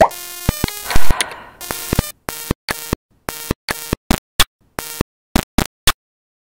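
Electronic intro jingle with synth tones and a noisy swell about a second in, followed by a quick run of short clicks and pops, about two or three a second, timed to animated graphics popping onto the screen.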